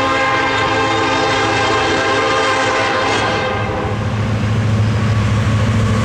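Diesel freight locomotive's air horn blowing one long chord of several tones for about three and a half seconds, then stopping, leaving the steady low rumble of the locomotives.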